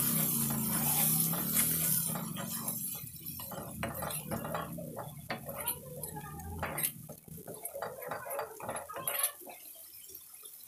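A metal spatula scrapes and clinks repeatedly against a metal kadhai while stirring a thick masala paste as it fries. Background music fades out about two seconds in.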